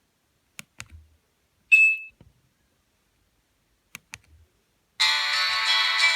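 Nokia 1280 keypad clicks, two at a time, and one short high beep, then a monophonic ringtone starts playing loudly about five seconds in.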